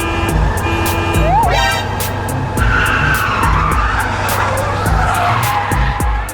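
Background music with a steady beat, and from about two and a half seconds in a long tyre-screech sound effect of a vehicle skidding, wavering and slowly falling in pitch.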